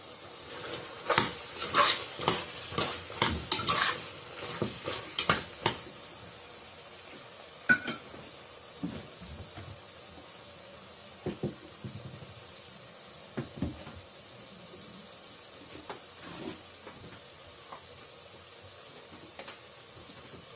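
A spatula stirring and scraping chicken masala in an aluminium pressure cooker, knocking rapidly against the pot for the first few seconds and then only now and then. A steady low sizzle of the masala frying runs underneath.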